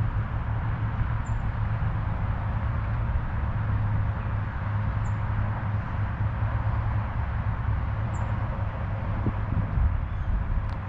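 Steady outdoor background of low rumble and hiss, with a bird's faint, high, short chirp repeating every three seconds or so.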